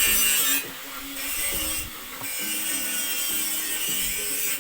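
Repeated back-and-forth scraping strokes of a brush working over a metal cable tray support, in runs of about a second with short breaks between them.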